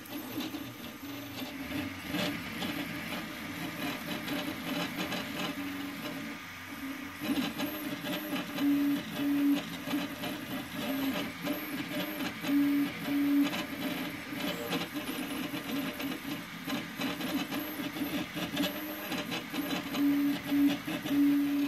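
Homemade 3D printer at work: its stepper motors whir and change pitch as the print head moves, with brief held notes here and there, loudest near the middle and at the end.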